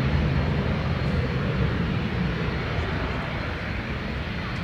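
Jet noise from a Dassault Falcon 2000LX business jet's twin Pratt & Whitney Canada PW308C turbofans: a steady low rumble with a hiss above it, slowly fading.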